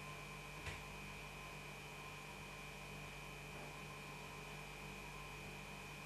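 Steady electrical hum with a constant hiss, and a faint single click under a second in.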